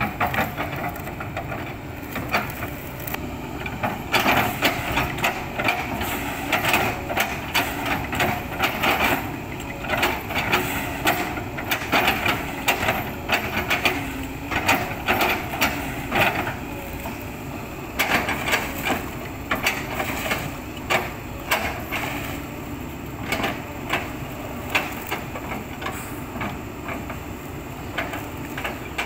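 Excavator chopping an old oil palm trunk into chips with its bucket: irregular sharp cracks and crunches of splitting, fibrous wood over the steady running of the machine's engine, thinning out near the end.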